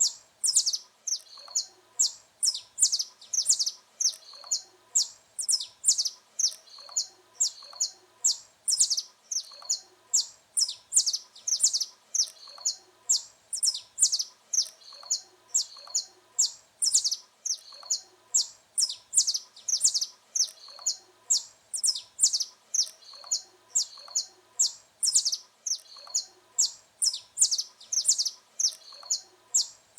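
Saffron finch singing a continuous run of sharp, high chirping notes, about two to three a second, strung into quick repeated phrases.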